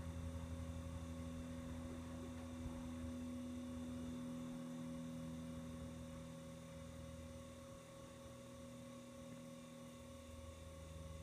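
Electric potter's wheel motor running with a faint, steady hum as the wheel spins.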